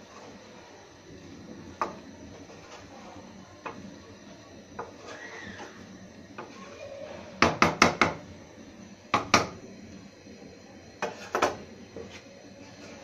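Wooden spatula turning cooked biryani rice in a pan, with sharp knocks of the spatula against the pan: a quick run of four about seven and a half seconds in, another near nine seconds, and two more near eleven seconds.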